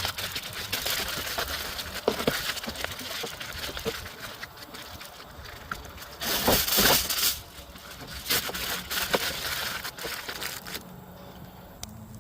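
Irregular crackling and crinkling with many small clicks, with a louder stretch about six to seven seconds in, dying down near the end.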